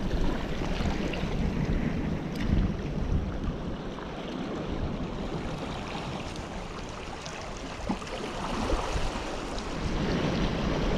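Wind buffeting the microphone over the wash of sea waves, gusting harder at the start and again near the end.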